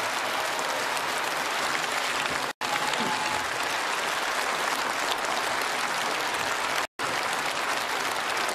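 Concert-hall audience applauding steadily at the end of a song. The sound drops out twice for an instant, about two and a half seconds in and again near seven seconds.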